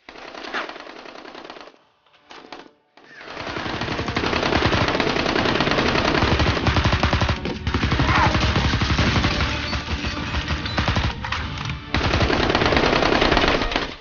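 Rapid machine-gun fire sound effects: a few short bursts, then continuous fast automatic fire from about three seconds in.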